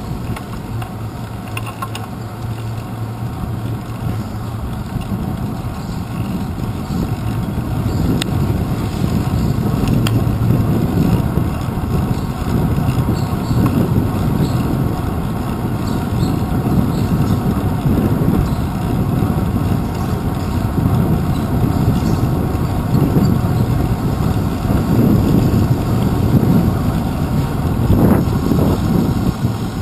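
Wind buffeting a handlebar-mounted GoPro Hero 2 on a moving bicycle, with the low rumble and rattle of the bike rolling over the street, and a few sharp knocks.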